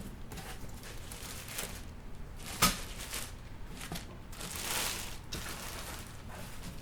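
Unpacking and handling noises: scattered light clicks, one sharp knock about two and a half seconds in, and a rustle of packaging from about four to five seconds in.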